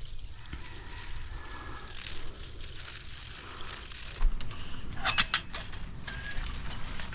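Crunching footsteps on dry leaves and debris, a short burst of crisp crackles about five seconds in. Under them is steady low outdoor background noise, and a faint steady high-pitched whine begins about four seconds in.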